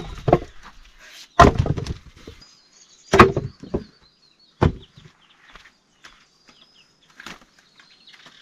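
Firewood being chopped: three heavy chopping strikes about a second and a half apart, then a lighter one. Faint bird chirps can be heard between the blows.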